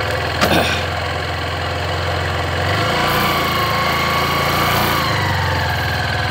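Motorcycle engine running steadily at low speed. A short knock comes about half a second in, and a high whine holds from about three seconds in, then drops in pitch near five seconds as the engine note changes.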